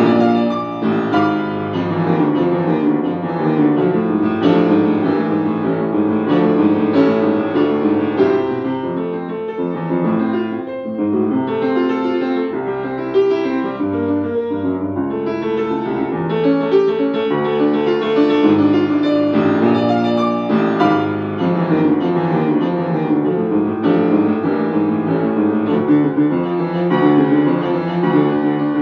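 Upright piano played solo: a fast, busy classical piece of many quick notes that goes on without a break.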